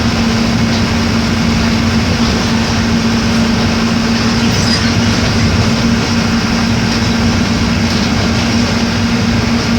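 Mercedes-Benz OF-1418 bus's six-cylinder diesel engine running steadily, with a constant hum and rumble and no change in pitch.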